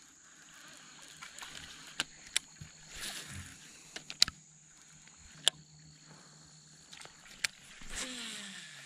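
Fishing gear and a boat hull being handled: about half a dozen sharp clicks and knocks as a baitcasting reel is worked and the rod moved for another cast, over a faint steady high-pitched hum.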